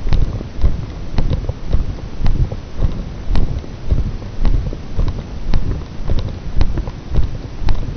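Footsteps walking steadily along a path, about two steps a second, each a low thud with a light click.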